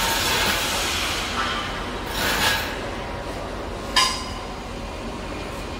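Steady rushing hiss of a welding fume extractor's airflow. It eases over the first two seconds and swells briefly about two and a half seconds in as the extractor arm is moved. One sharp metallic clink with a short ring comes about four seconds in.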